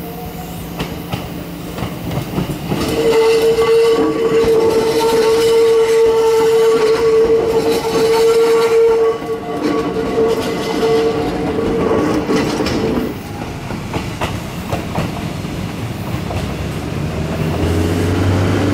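Hakone Tozan Railway 'Allegra' electric train departing and running past close by. A steady tone sounds for about six seconds as it approaches, and the wheels clatter over the rails as the cars go by.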